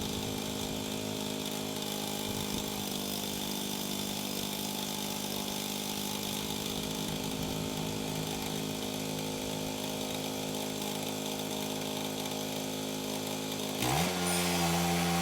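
Engine of a Woodland Mills 122 portable bandsaw sawmill running steadily as it saws an ash log. Near the end the engine note suddenly rises in pitch and gets louder.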